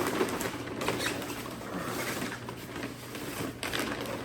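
Paper takeout bags crinkling and rustling as they are opened and unpacked, with irregular crackles throughout.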